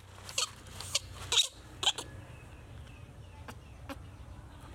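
Baby monkey making a few short, sharp squeaks and grunts in the first two seconds, the loudest about a second and a half in, followed by a few faint clicks.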